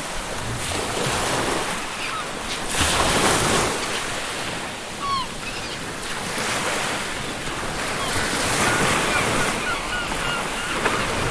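Ocean surf washing onto a beach in slow swells, the loudest about three seconds in, with seagulls giving short calls in the background, several in a row near the end.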